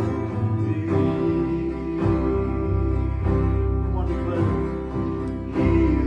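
Worship music with guitar, bass and steady chords changing about once a second.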